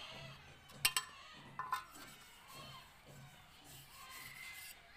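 Faint metallic clinks of a steel plastering trowel against metal while cement mortar is worked around a window opening: a sharp double click about a second in, then a short ringing clink a little later.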